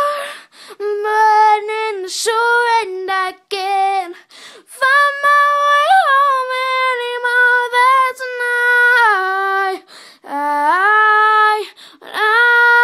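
A girl singing solo and unaccompanied, holding long notes that slide between pitches, in several phrases broken by short breaths.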